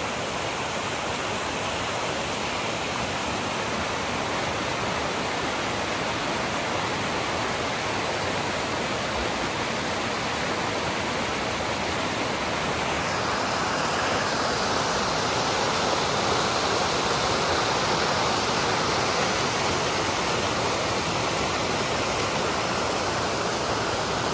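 Creek water rushing and splashing as it pours over a rock ledge in a small cascade: a steady white-water rush that grows a little louder about halfway through. The creek is running in heavy flow with spring snowmelt.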